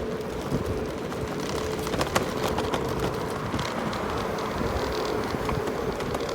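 Electric rental scooter in motion: steady road and wind noise with a faint steady hum, and scattered short rattles and knocks from bumps in the pavement.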